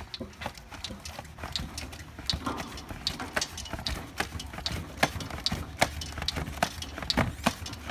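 Hydraulic pallet jack being pumped up under load: a rapid, irregular run of metallic clicks and clunks from the handle and pump, over a steady low hum.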